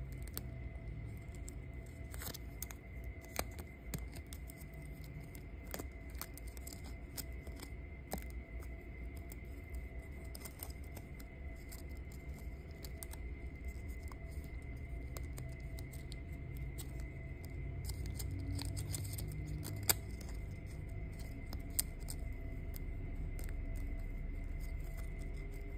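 Small handling sounds from jewelry-making supplies: scattered light clicks and rustles, with a sharper click about twenty seconds in, over a steady low hum and soft background music.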